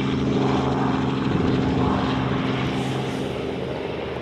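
Airbus A350's Rolls-Royce Trent XWB turbofan engines running as the airliner slows on the runway after touchdown: a steady engine hum whose lower tones drop away about three seconds in.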